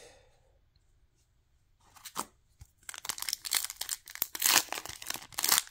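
Foil trading-card pack wrapper being torn open by hand. A brief crackle comes about two seconds in, then steady crinkling and tearing from about three seconds in.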